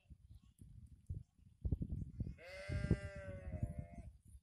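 A bleating farm animal calls once, a single long call of about a second and a half starting a little past halfway, over low rumble and thumps.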